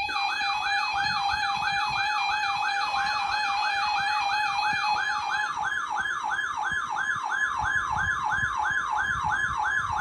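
Electronic siren-like emergency alert tone: a rapid wail sweeping up and down about three times a second over a steady held tone.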